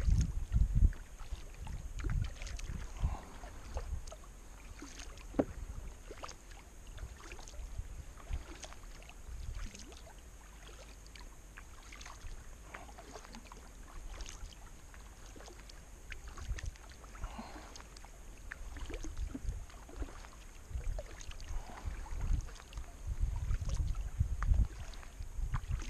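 Kayak being paddled on calm water: paddle blades dipping and splashing, with scattered drips, over a low rumbling that is heaviest at the start and near the end.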